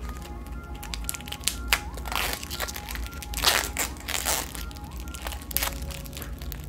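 Cellophane wrap on a deck of playing cards crinkling and tearing as it is picked and peeled off by hand, in several short bursts, the loudest about halfway through, over soft background music.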